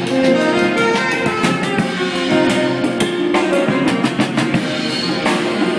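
Live band playing the closing section of a tune, with guitar over a drum kit and frequent drum and cymbal hits.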